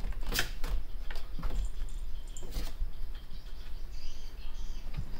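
Scattered light taps and clicks as a cat paws about, over a steady low rumble.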